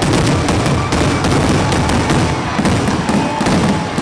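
Fireworks grand finale: a dense, unbroken barrage of aerial shell bursts, with many bangs and crackles a second piling on top of one another.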